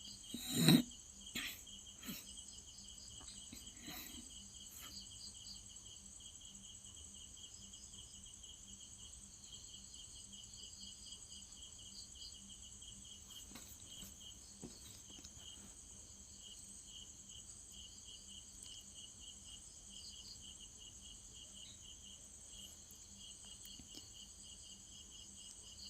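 Crickets chirping steadily in a pulsing trill. About half a second in there is one sharp knock, followed by a few lighter clicks over the next few seconds.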